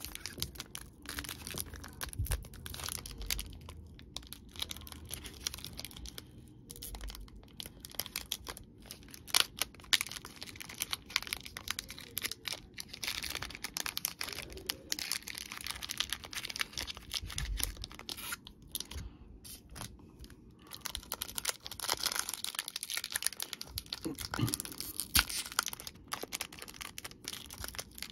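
Pokémon booster pack wrappers of foil film crinkling and tearing as they are ripped open by hand, with irregular crackles and rustles.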